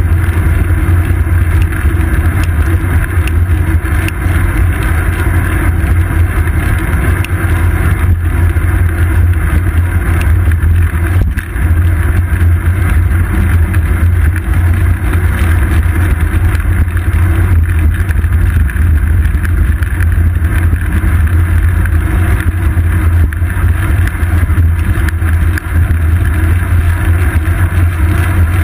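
Steady, loud low rumble of wind buffeting and road vibration picked up by a seat-post-mounted GoPro Hero 2 on a moving road bicycle.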